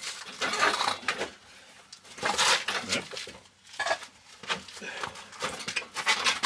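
Metal tools and parts clinking and clattering in irregular bursts, handled during work on a car's automatic gearbox in a narrow brick inspection pit.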